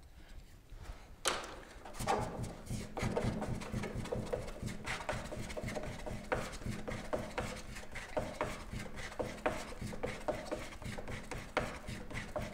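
A spreader scraping and smearing body filler back and forth on a mixing board in quick, repeated strokes, mixing in the hardener. It starts about a second in.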